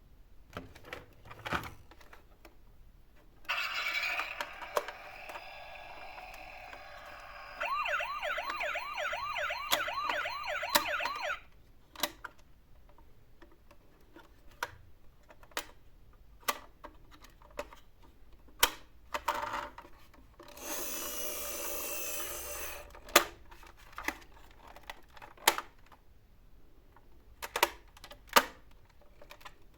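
Battery-powered toy vehicle sound chip playing a rapid warbling siren for a few seconds, about a third of the way in, with other short electronic sound effects before it and again later. Many sharp plastic clicks and taps of toys being handled and buttons pressed.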